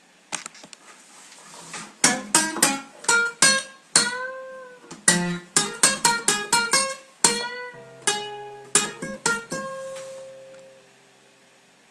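Acoustic guitar played by hand: a few light notes, then from about two seconds in a short run of strummed chords and single plucked notes, the last chord left ringing and fading out near the end.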